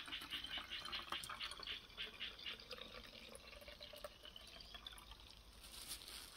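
Faint sound of water trickling in a thin stream from a large plastic bottle into a narrow-necked plastic spray bottle, filling it. The pour thins out after about four or five seconds.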